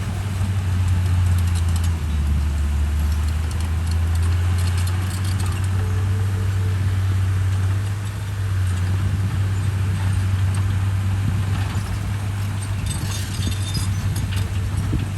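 Komatsu bulldozer's diesel engine running under load: a steady low drone that shifts in pitch about two seconds in and again around eight seconds as the load changes. A patch of clicks and rattles comes near the end.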